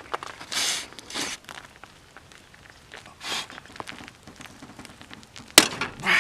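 Heavy breathing: a few short, hard exhales from someone straining at a stuck bolt, with faint scraping and ticking of tools and one sharp click near the end.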